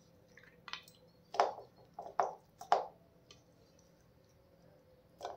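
Raw chicken pieces being dropped by hand into a bowl of sliced onions and herbs: four short sounds in the first three seconds as the pieces land.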